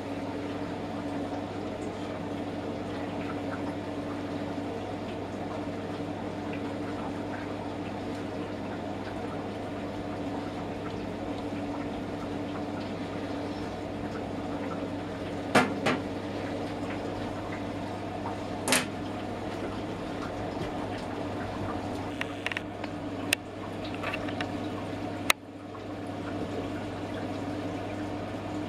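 A running pot still with a steady hum and the trickle of distillate into a glass jug. Sharp glass clinks come about halfway and a few more near the end as the glassware is handled.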